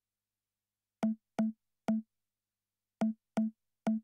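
A reFX Nexus 3 sequencer pattern playing six short, identical synth notes on one low pitch, in two groups of three about two seconds apart.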